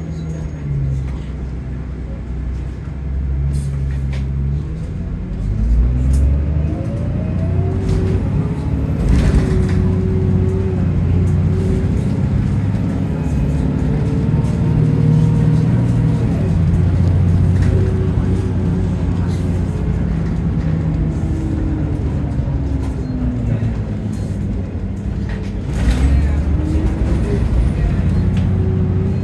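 Bus diesel engine heard from inside the saloon, accelerating with its pitch rising through the gears, holding, easing off and picking up again several times as the bus drives on. A few short knocks and rattles come through the body.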